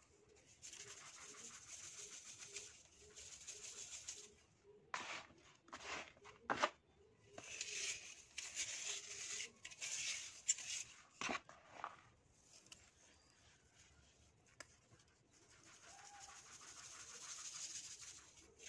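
Fine dry sand sifting through a metal-mesh sieve onto a heap in a plastic tub, a soft hiss that swells and fades as the sieve is shaken. There are a few sharp taps on the sieve, the loudest about six and a half seconds in, and a quieter lull late on.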